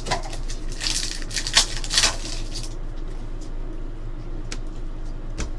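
Trading cards being handled: a run of rustling and sliding sounds about a second in, then a few faint ticks over a low steady hum.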